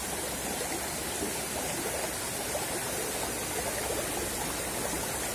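Shallow, rocky river flowing fast over stones: a steady rushing of water.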